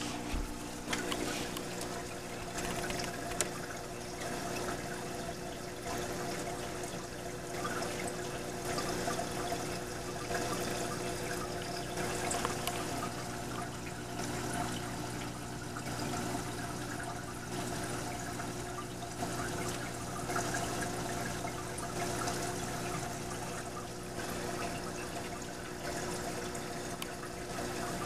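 Reef aquarium's water circulation: steady trickling and splashing of moving water over a constant low hum.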